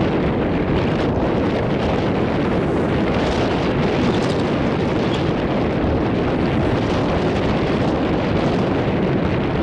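Wind buffeting the microphone: a loud, steady rushing noise without a break.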